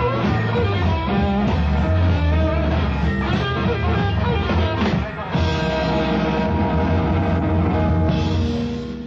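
Late-1960s rock band with electric guitar, bass and drums playing the close of a song, ending on a final chord struck about five seconds in and held, which starts to fade near the end.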